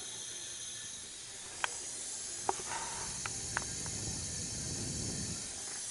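Steady hiss of compressed air from a leakdown tester escaping out of a Subaru EG33 flat-six's crankcase breathers and dipstick tube, with a few faint clicks. Air that blows through to the crankcase like this means the cylinder is leaking very badly past the piston rings.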